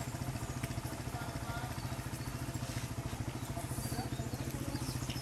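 Vehicle engine idling with a steady, fast, even throb, with faint voices now and then.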